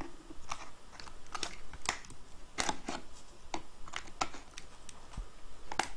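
Irregular sharp clicks and taps, about ten over a few seconds, from a plastic power adapter case being handled and knocked against tools on a workbench.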